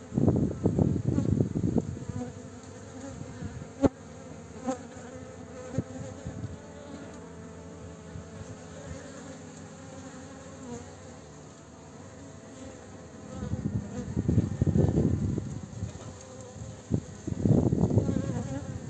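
Bees buzzing in flight, a steady hum with a few overlapping tones. Three spells of louder low rumbling noise come and go: at the start, about two-thirds of the way through, and near the end.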